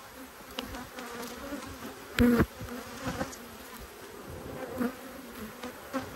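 Steady hum of a large honey bee colony over the open frames of a hive, with a brief much louder burst about two seconds in. A few light knocks of the wooden frames are heard as one is worked loose and lifted.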